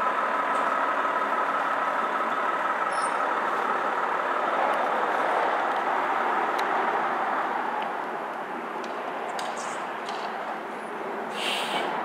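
Fire rescue truck's engine idling steadily in the station bay, with a short hiss near the end.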